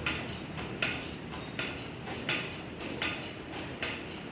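Metal clicking or clinking, evenly spaced at about one every three-quarters of a second, over a low steady hum.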